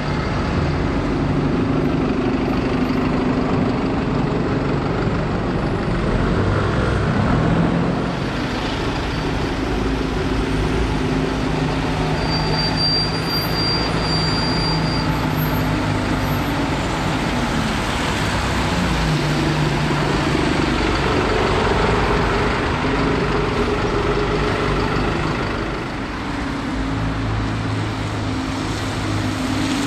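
Alexander Dennis Enviro 200 single-deck buses running and pulling through busy street traffic, engine note changing as they move off and pass, over a steady road-traffic noise.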